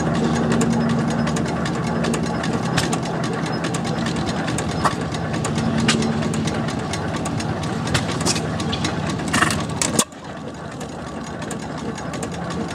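Antique single-cylinder stationary gas engine with twin flywheels running, a steady low chuffing hum broken by sharp pops at uneven intervals. The level drops suddenly about ten seconds in.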